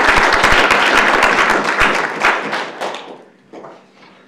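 Audience applause that fades out about three seconds in.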